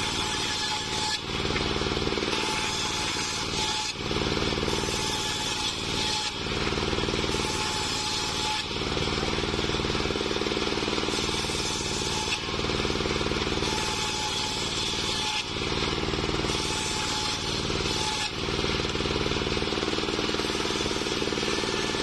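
A homemade table circular saw, its large blade driven by a stationary engine, running steadily while cutting waru (sea hibiscus) planks. The engine drone carries on throughout, with brief dips in loudness every two to three seconds.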